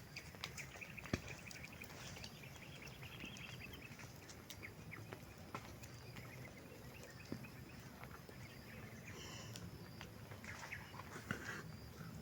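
Cattle herd sounds: scattered clicks and knocks over a steady low rumble, with no mooing.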